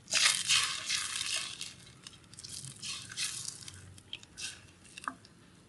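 Wooden spatula stirring tamarind water in a stainless steel pot: liquid swishing and sloshing, loudest for the first couple of seconds, then in lighter, separate swishes with a few light taps.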